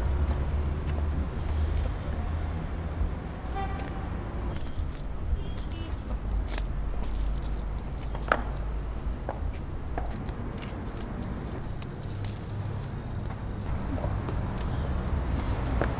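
Light metallic clinking and jingling of small metal objects in the hand, scattered through, over a steady low rumble of street traffic.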